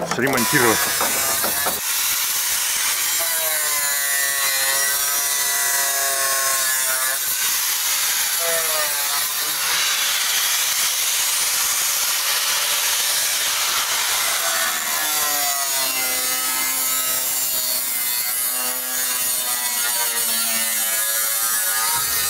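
Angle grinder working the rusted sheet metal of a van's door sill, a continuous hiss of disc on steel. Its whine wavers up and down as the disc bites and eases.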